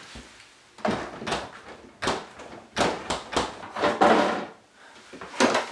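Items being moved about in an open under-counter fridge: a string of knocks and clatters as containers hit the shelves and the door.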